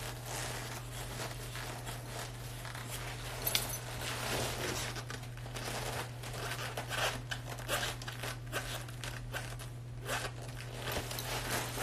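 Rustling and scattered short clicks and knocks of someone handling things and clothing close to the phone, growing busier about halfway through, over a steady low hum.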